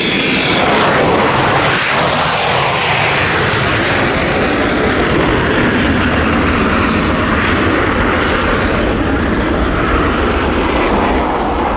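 RAAF F/A-18 Hornet jet flying by, its twin F404 turbofan engines loud and steady, with a falling sweep in pitch about two seconds in.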